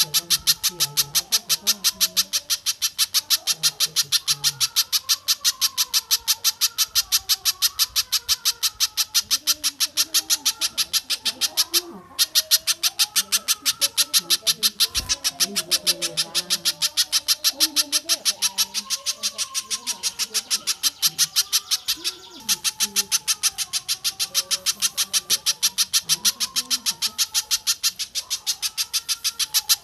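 A recorded bird call played on a loop for song training: one sharp, high note repeated steadily at about five a second, with two short breaks where the loop restarts, over fainter warbling calls lower down.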